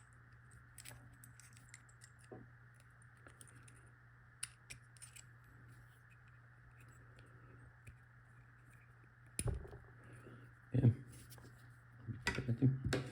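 Scattered faint metal clicks and scrapes of small padlock parts and tools being handled, with a louder knock about nine and a half seconds in and a quick run of clicks near the end, over a steady low hum.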